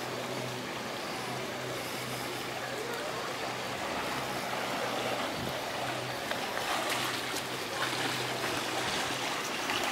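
Swimming pool water feature running: water trickling and splashing steadily into the pool, over a steady low hum.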